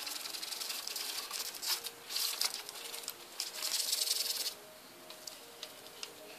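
Hand rubbing and scratching across newspaper, a dense crinkly rustle that stops about four and a half seconds in, followed by a few faint scratches.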